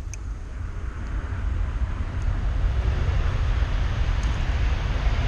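Wind buffeting the microphone: a steady low rumble with a rushing hiss that grows stronger over the first two seconds, and a few faint clicks.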